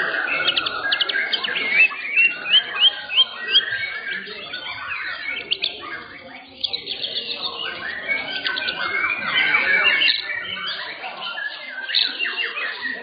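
White-rumped shamas (murai batu) singing, a dense overlapping flow of whistles and chirps. Between about two and three and a half seconds in, a run of about five loud, repeated rising notes stands out.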